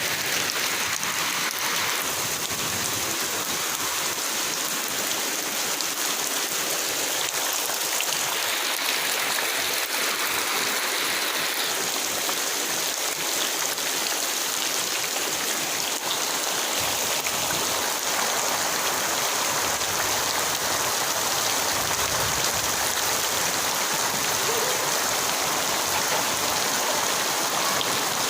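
Heavy rain falling steadily, a dense even hiss of rain on surfaces with running water from the downpour.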